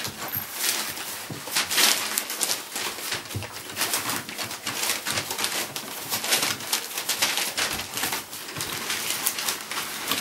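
A litter of 3½-week-old Dalmatian puppies playing: newspaper rustles and crinkles under their scrabbling paws, with small puppy grunts and squeaks.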